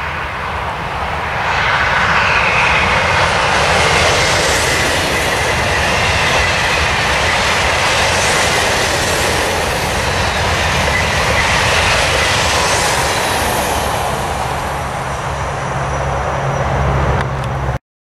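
Two coupled TGV Duplex high-speed trainsets passing at speed: a loud rushing of air and wheels on rail with a faint whine. It swells about a second and a half in, holds for over ten seconds, and eases off. Near the end a heavy low rumble of wind buffets the microphone in the train's wake, then the sound cuts off suddenly.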